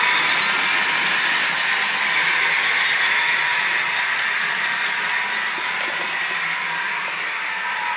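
Hornby DCC-sound model of a Class 60 diesel locomotive running, its sound decoder playing diesel engine sound through a small speaker with a steady hum and little bass. A fast run of faint ticks sits over it for most of the time, and the sound slowly gets quieter.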